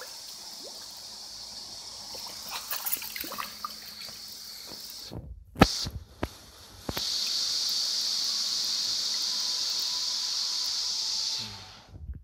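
Water running steadily with scattered clicks and knocks. It breaks off about five seconds in, with a few sharp knocks. From about seven seconds a louder, steady rush of running water takes over, then fades just before the end.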